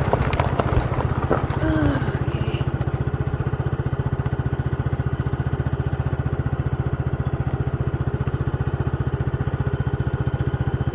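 Motor scooter engine running, settling about two seconds in to a steady idle with an even, rapid putter.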